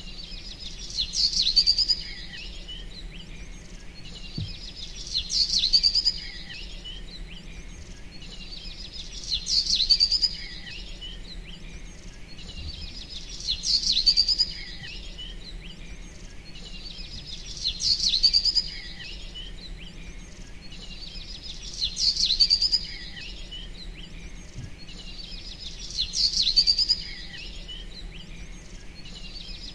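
Birdsong: the same short burst of high chirps and trills repeats about every four seconds, about seven times, each time alike, as in a looped recording. A faint steady low hum runs underneath.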